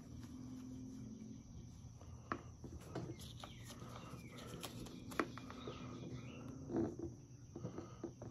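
Scattered faint clicks and knocks from hands working on a string trimmer's fuel-line fittings. Insects buzz steadily behind them, with a few bird chirps.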